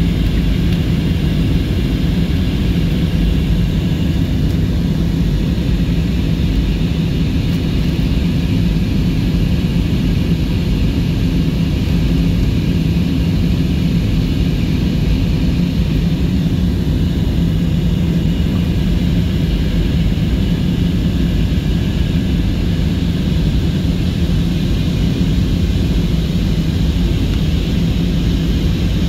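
Steady cabin noise of an Airbus A320 in flight: jet engine and airflow noise heard from inside the cabin, a low hum with a faint high whine above it.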